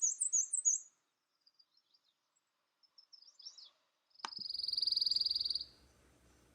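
Black-and-white warbler song: a run of high, thin, squeaky repeated two-note phrases, like a squeaky wheelbarrow, ending about a second in. Faint high chips follow, then about four seconds in a bird's rapid, even, high trill lasting about a second.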